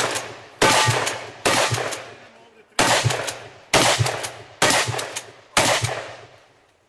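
Shotgun firing six shots at an uneven pace, roughly one a second, each shot ringing out in a long echoing decay. This is an IPSC practical-shotgun stage being shot.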